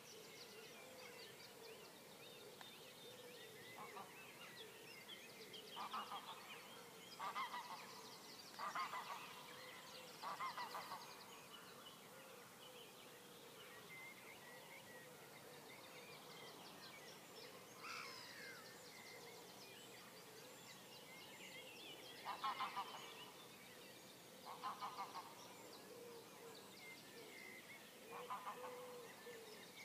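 Water birds calling in short, pulsed calls, four in a run about a quarter of the way in and three more over the last third, over faint high-pitched songbird singing at dawn.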